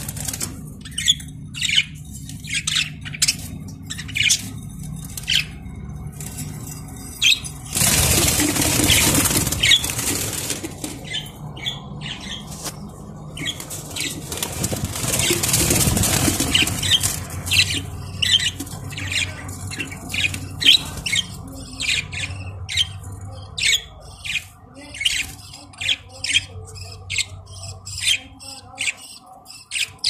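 Budgerigars chirping in many short, high calls, coming thick and fast towards the end. Twice there are loud spells of rustling noise lasting two to three seconds each, under a faint steady low hum.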